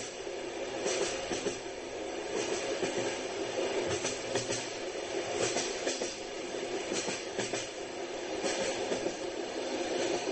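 Train running on rails, a steady rumble with the wheels clacking over rail joints about once a second, unevenly spaced.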